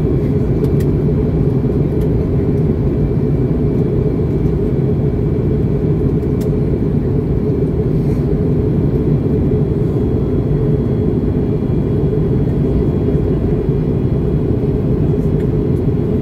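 Airbus A321neo cabin noise in flight: the steady, low rumble of engines and airflow heard from a passenger seat, with a few faint ticks.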